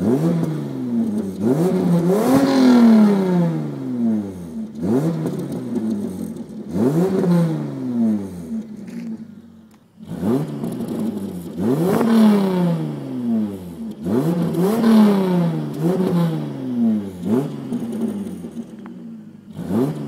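1998 Toyota Sienna minivan's 3.0-litre V6 through a custom side-pipe exhaust, revved over and over in quick blips that rise and fall back, with a brief pause about halfway through.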